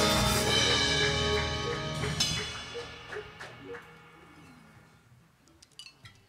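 A jazz combo's final chord ringing out and dying away, with a few single vibraphone notes struck over the decay before it fades to near silence. A few faint clicks come near the end.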